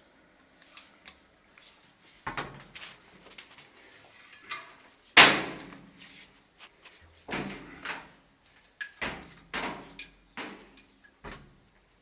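A series of irregular sharp knocks and clatters, about seven in all, the loudest about five seconds in.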